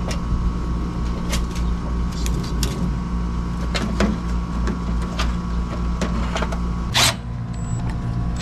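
Light knocks and taps of a metal electrical breaker box being handled and held against a wall, over a steady mechanical hum. A louder knock comes about seven seconds in, and then the hum cuts off suddenly.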